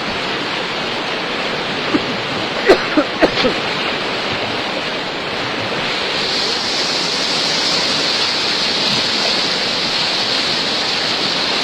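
Floodwater rushing in a steady, loud roar, with a few short sharp knocks about two to three seconds in.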